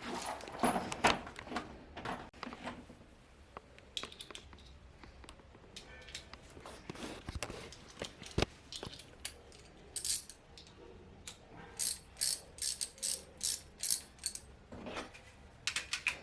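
Scattered handling knocks, then from about ten seconds in a hand ratchet clicking in quick, even strokes, about three a second, as it drives the bolts of a TV wall-mount bracket.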